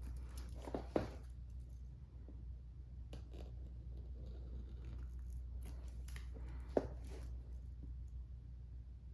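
Plastic wrap on a cardboard box being cut and handled: scattered soft crinkles with a couple of sharp clicks, about a second in and again near seven seconds, over a low steady hum.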